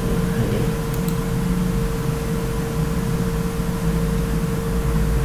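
Steady mechanical background hum and hiss with a constant mid-pitched tone, and faint clicks about a second in.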